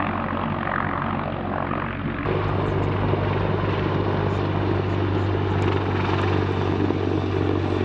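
Sikorsky CH-53E Super Stallion heavy-lift helicopter's rotors and turbine engines running steadily in flight. About two seconds in, the sound changes abruptly and a low hum becomes stronger.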